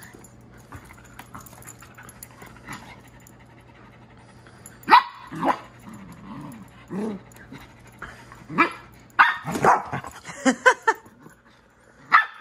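Poodles barking in rough play. After about five quiet seconds come short, sharp barks, a few at first and then a quick run of them near the end.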